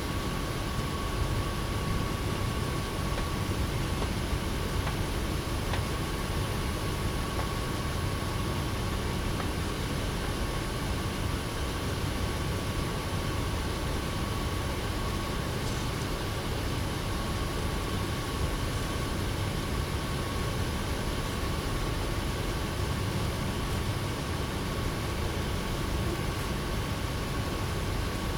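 Steady low rumbling background noise with a thin, steady high tone running through it; no distinct knocks or other separate sounds stand out.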